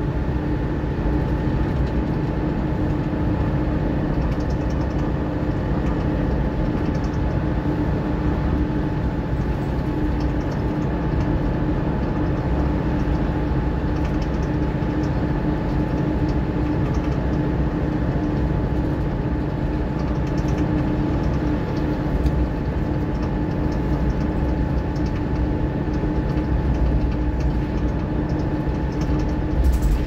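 Mercedes-Benz Citaro O530 bus's diesel engine and drivetrain running under steady load at a constant speed, heard on board: a low rumble with a steady whine over it.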